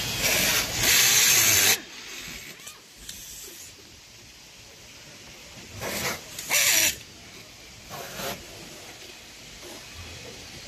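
Pneumatic automatic cable tie gun firing on compressor wiring. For about the first two seconds there is a loud hiss of compressed air as a tie is fed and tightened. Then comes a lower factory background, with a few shorter air hisses in the middle and a last one at about eight seconds.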